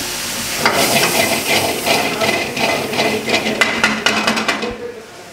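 A steel ladle knocking and scraping against a metal wok in quick, irregular strokes as a spiced onion masala is stirred, over a sizzle. The stirring stops near the end.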